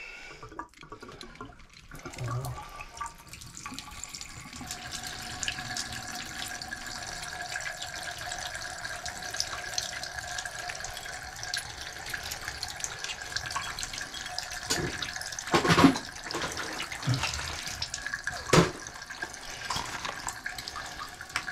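Water running out of an open shower valve body whose Moen Posi-Temp cartridge has been pulled: a steady hiss with a faint whistle in it, starting a few seconds in. Two sharp knocks come near the end.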